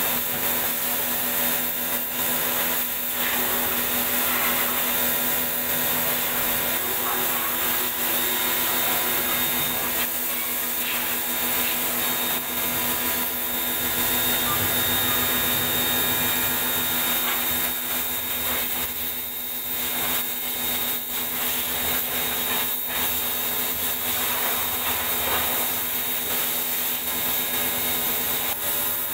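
Portable electric pressure washer running steadily, its motor and pump holding a constant whine under the hiss of the water jet, as it blasts the rear brake drum and hub clean.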